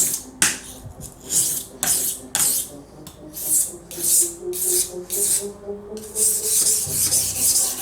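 Paring knife blade being sharpened by hand: a run of short, hissing strokes of steel against an abrasive, about one every half second, with a longer stroke near the end. Faint background music underneath.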